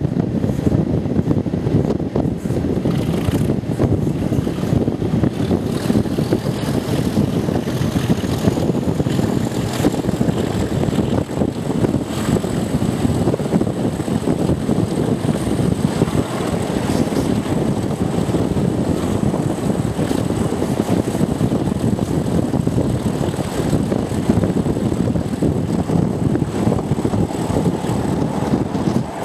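Class 37 diesel locomotive 37676, with its English Electric V12 engine, working hard under power, heard close up from the open window of the coach behind it: loud, steady engine thrash with a high turbocharger whistle that rises over the first ten seconds or so, then holds steady. Wind rushes over the microphone.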